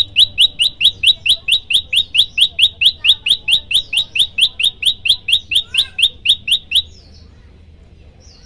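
Common tailorbird (prenjak lumut) giving its loud 'tembakan' rapid-fire call: short rising notes repeated evenly at about four a second, stopping suddenly near the end.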